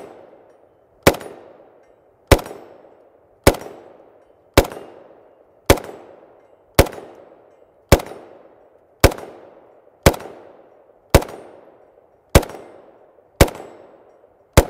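FN FNC 5.56×45mm rifle firing single shots at a steady pace, about thirteen rounds a little over a second apart. Each is a sharp crack with an echoing tail.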